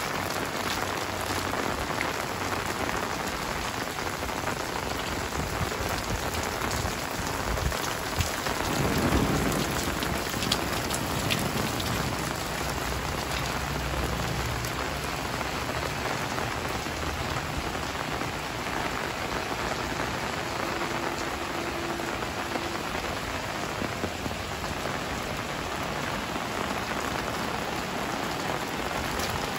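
Heavy rain falling steadily on paved lanes and roofs, with water dripping from the eaves. A low rumble swells briefly about nine seconds in.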